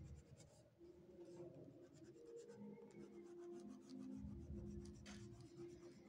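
Faint scratching of an oil pastel crayon rubbed back and forth over drawing-book paper, colouring in.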